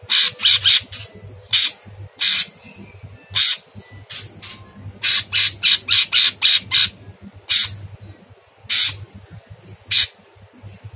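Caged male orange-bellied leafbird (cucak cungkok) giving very harsh, short rasping notes. Most come singly, with a quick rapid-fire run of about half a dozen midway.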